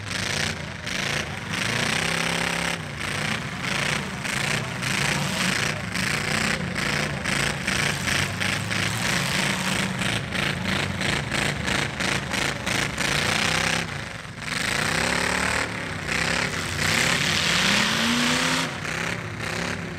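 Demolition derby pickup trucks' engines running loud and rough, revving up and down several times, with a rapid sharp crackle in the exhaust.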